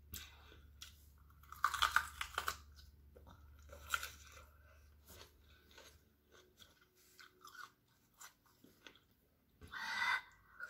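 Crisp crunching bites and chewing of a raw red bell pepper, loudest about two and four seconds in, then quieter chewing. Near the end a sharp, hard breath out through the open mouth from the chilli heat.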